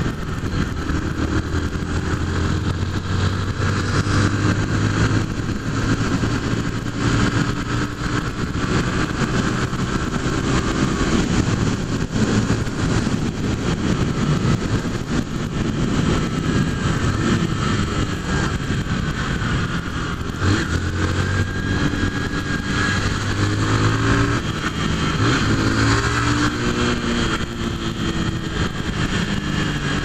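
Honda CG 150 Fan single-cylinder four-stroke engine running on the road, its pitch rising and falling several times with throttle and gear changes, under a steady rush of wind noise.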